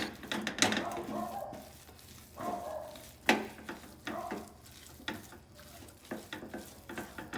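A utensil stirring and scraping a thick croquette mixture of mashed potato and crab meat in a pan over low heat, with irregular clicks and scrapes against the pan, the loudest about three seconds in.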